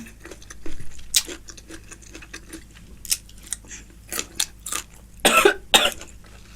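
Close-miked chewing: wet clicks and crunches of a mouthful, likely raw mango salad, with two loud short bursts in quick succession about five seconds in.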